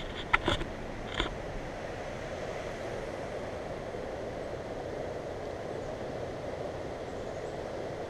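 Steady rushing noise of wind and tyres while riding a bicycle on a paved road. A few sharp clicks come in the first second or so.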